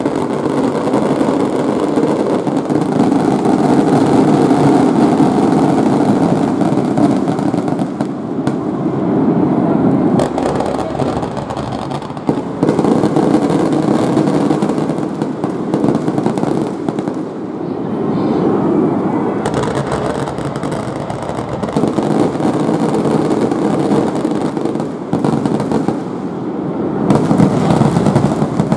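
Fireworks display going off in a dense, continuous barrage of bangs and crackling that swells and eases several times.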